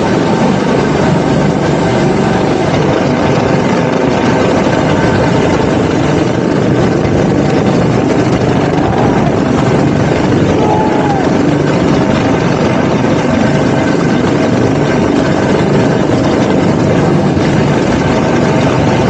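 Military rescue helicopter hovering right overhead, its rotor and turbine running loudly and steadily without a break.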